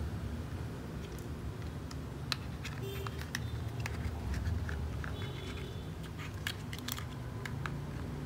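Hard plastic toy vehicle parts clicking and knocking together as they are handled, a scattering of sharp clicks over a steady low background hum.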